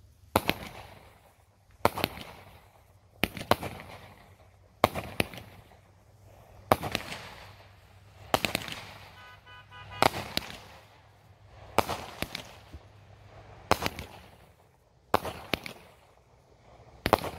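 Aerial fireworks going off in a steady series: about a dozen sharp bangs, roughly one every second and a half, each trailing off in a fading crackle. A brief pulsing tone is heard near the middle.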